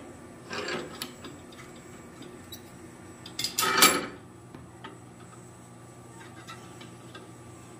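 Metal scraping and rubbing in a blacksmith's shop: a short scrape about half a second in and a louder one a little past the middle, with a few light ticks, over a steady low hum.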